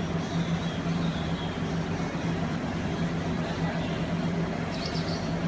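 A steady low machine hum over a constant rush of noise, with a brief high-pitched sound near the end.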